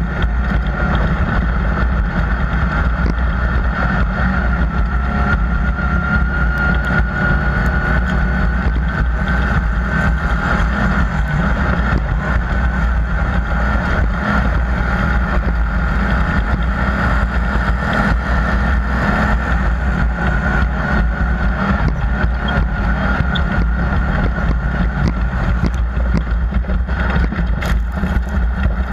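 Off-road race vehicle running steadily at speed: continuous engine and driving noise with a strong low-pitched content and a faint steady whine, unbroken throughout.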